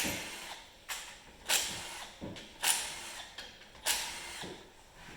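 Hurried hand-tool and metal-part clatter while a snowmobile is taken apart: about seven sharp, hissy bursts at irregular intervals, each fading quickly.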